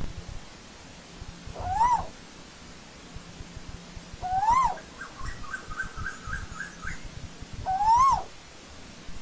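Asian koel calling: three loud whistled notes a few seconds apart, each rising and then falling in pitch. Between the second and third calls there is a faint, rapid series of short higher notes.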